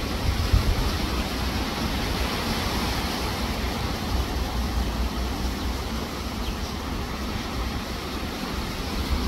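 Wind gusting across the microphone, making an uneven low rumble over a steady rushing noise.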